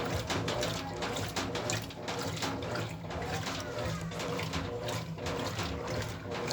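Brastemp Ative 9 kg washing machine running a wash cycle: water splashing and swishing in the drum over a steady low motor hum.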